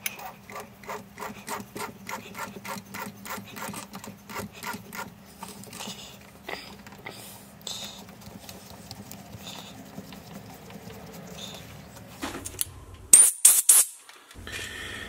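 A metal lathe runs with a steady hum while a drill in the tailstock drill chuck cuts into a small workpiece held in a four-jaw chuck, scraping evenly about three times a second for the first few seconds. The lathe stops about twelve seconds in, and a few loud metal clanks follow.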